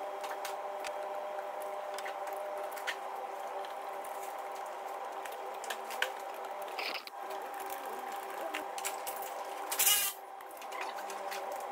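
Steady mechanical hum with scattered clicks and ticks of hand tools on metal as the gearbox bolts are refitted. A short, loud burst comes about ten seconds in.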